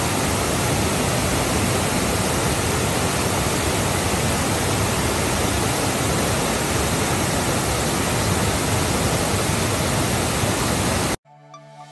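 Rushing water of a stepped stone waterfall in spate, running high and fast and swollen by days of rain: a steady, even rush. It cuts off suddenly near the end.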